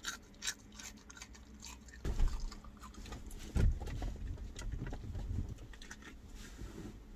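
A raw garlic clove being chewed and crunched, with small wet clicks from the mouth. From about two seconds in there are louder muffled bumps and rustling as the eater squirms.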